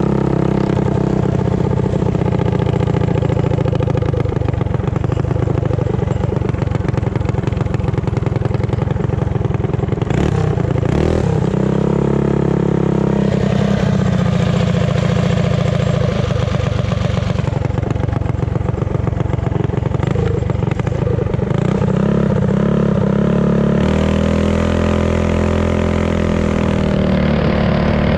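Mini bike engine running hard under way, its note rising and falling as the throttle is opened and eased several times.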